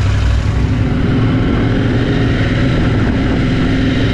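KTM 890 Adventure R's parallel-twin engine running steadily as the motorcycle pulls away and rides slowly along a street.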